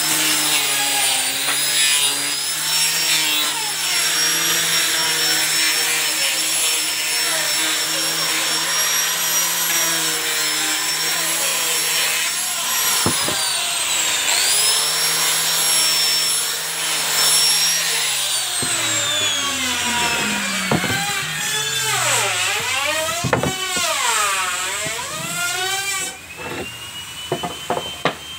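Maktec hand grinder fitted with 180-grit sandpaper, running at high speed and sanding teak, with a steady high whine. The whine dips and picks up again just before halfway. About two-thirds of the way in the grinder is switched off and winds down in a long falling whine, and a fainter rising tone follows near the end.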